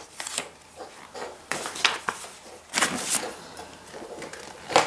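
Paper and cardboard being handled: a stiff printed card and the box's cardboard rustling and knocking in a few short bursts, the loudest about three seconds in.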